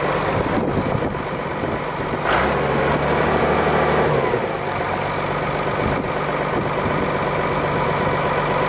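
A red cab tractor's diesel engine running steadily at low revs, its note shifting slightly as the tractor creeps forward and then stands idling. A brief burst of noise comes about two seconds in.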